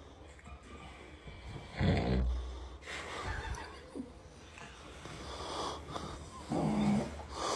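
A person in bed snoring: two loud snores, about two seconds in and again about seven seconds in, with quieter breathing between them.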